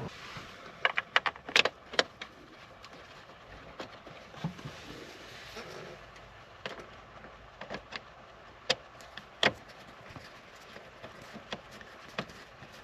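Sharp metallic clicks and clinks of tools and parts being handled during hand work: a quick run of them about a second in, then scattered single clicks and knocks, two louder ones near the end.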